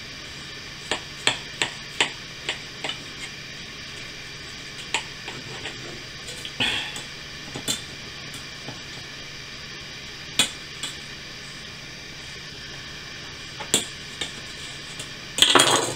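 Knife blade clicking and knocking against a ceramic plate as hamburgers are cut in half: scattered sharp ticks, several close together in the first few seconds, then further apart. A louder burst of handling noise comes just before the end.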